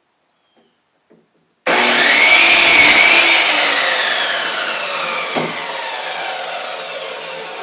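Electric power saw cutting 2x3 lumber: it starts suddenly about two seconds in with a whine that rises briefly, then falls in pitch and fades slowly as the blade winds down.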